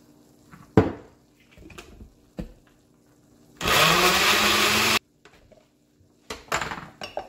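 Countertop blender running for about a second and a half, puréeing sliced green plantain with peanut butter and water, then stopping suddenly. Before it comes a sharp knock about a second in and a lighter one later; a few clinks follow near the end.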